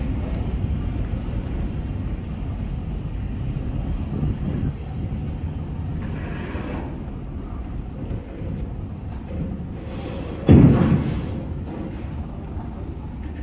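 Low, steady rumble of heavy diesel engines from car-carrier trucks moving slowly toward the ferry, with one loud thud about ten and a half seconds in.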